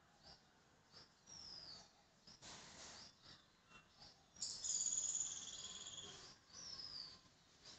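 Small birds chirping and whistling high up, with a thin whistle that slides downward, heard twice, and a long, high buzzing trill in the middle.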